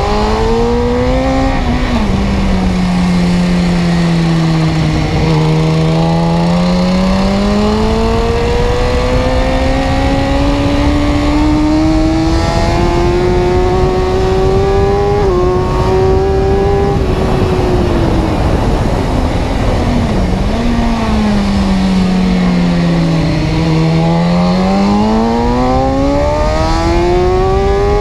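Car engine running under way, its pitch climbing slowly and falling back several times, over a steady rush of road and wind noise.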